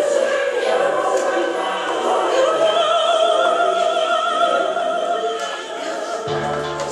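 Music with an operatic voice singing long held notes with a wide vibrato over a choral and orchestral backing; low bass notes come in near the end.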